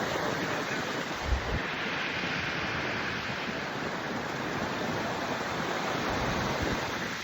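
Steady rushing of a waterfall, with wind buffeting the microphone in low thumps, one stronger gust about a second and a half in.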